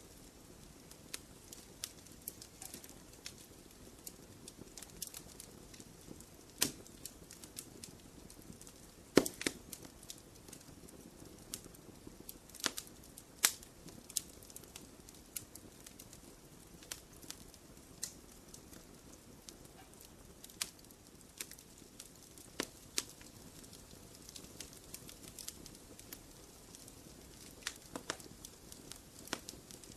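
Wood fire in a fireplace crackling: irregular sharp pops and snaps over a low steady hiss of the flames, with the loudest pops about nine and thirteen seconds in.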